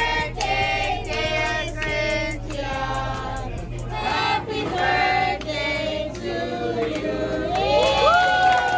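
A group of people singing a birthday song together in a steady rhythm, with hands clapping along, ending on a long held note that several voices slide up into near the end.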